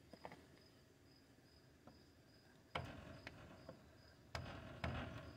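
A piece of wood knocking the new dust cap onto a 1984 Ford F-150's front hub: about five or six sharp knocks in the second half. Crickets chirp steadily throughout.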